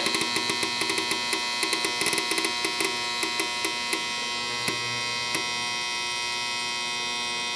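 Ultrasonic cleaner filled with diesel running: a steady electric hum and buzz, with irregular crackling ticks through the first five seconds or so before it settles into an even drone. The owner says it doesn't sound great and suspects its motor is going out.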